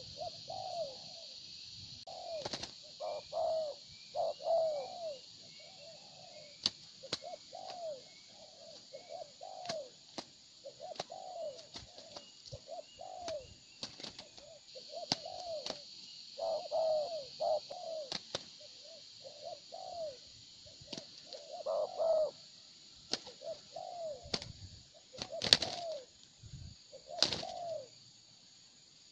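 Spotted doves cooing over and over, short arched coos about one a second, as the birds fight. Sharp clicks and wing flaps come in among the coos over a steady high hiss.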